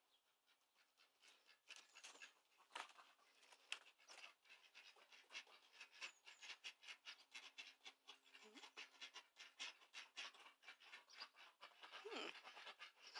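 Faint, fast, rhythmic panting of an animal, several breaths a second, with a short falling call near the end.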